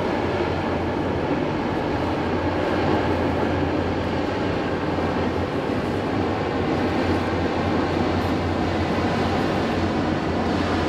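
A ship's engines running under way: a steady, low drone with an even rushing noise over it.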